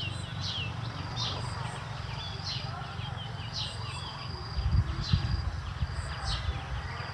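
Bird chirping in short, high, falling notes about once a second, over a steady low rumble with a few louder bumps around the middle.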